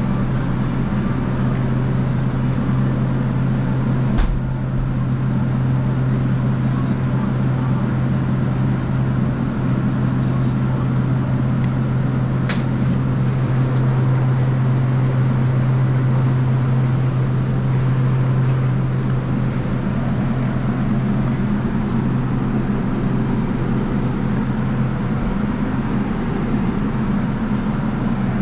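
Steady low hum of refrigeration machinery in a walk-in dairy cooler, with a few light clicks of egg cartons being handled.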